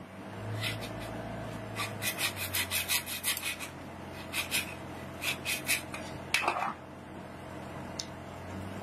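Metal hand tool scraping against the lead plates of a dismantled lead-acid battery in quick strokes, about five a second, in short runs, with one louder scrape a little past halfway, over a steady low hum.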